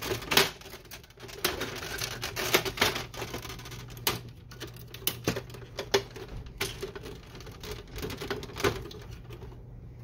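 Irregular plastic clicks, taps and rattles from the printer's plastic housing and cable connectors being handled and unplugged, with a few louder knocks.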